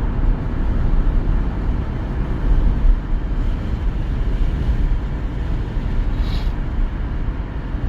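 Steady low rumble of road and wind noise from a car driving along a highway, heard from inside the moving vehicle.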